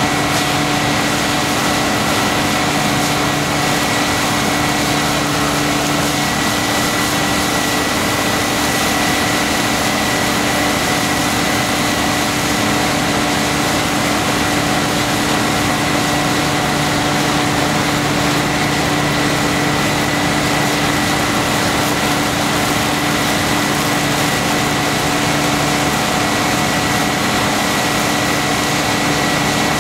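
Snow-blowing machine running steadily, pushing snow out through a wide hose and nozzle: a constant machine hum with a high steady whine over a rushing hiss.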